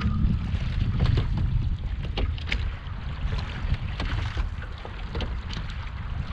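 Wind buffeting the microphone in a heavy low rumble, strongest in the first couple of seconds, with water splashing and slapping against a small sailing boat's hull underway.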